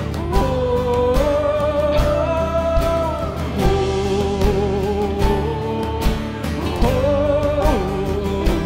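Worship band music with a steady beat under long, held wordless vocal notes that glide between pitches.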